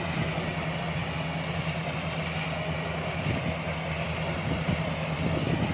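Rice combine harvester's engine running steadily at constant speed, a continuous low hum with mechanical noise over it.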